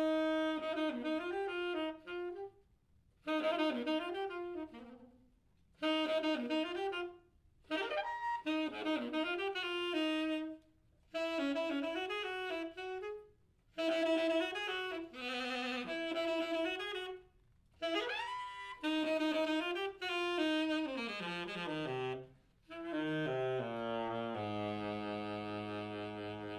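Saxophone playing short phrases with bending, sliding pitch, separated by brief pauses, meant to evoke elephant cries. Near the end a long downward slide drops into a sustained low note.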